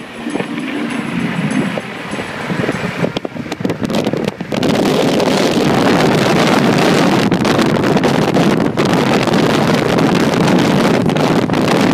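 Wind rushing and buffeting the microphone along with road noise from a car driving at speed; the rush grows louder about four and a half seconds in.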